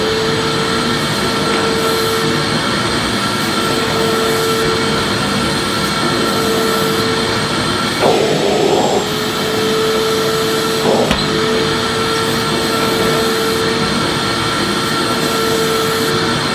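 Vacuum cleaner running steadily: a constant rushing roar with an even motor whine. There is a brief rougher surge about eight seconds in and a short click around eleven seconds.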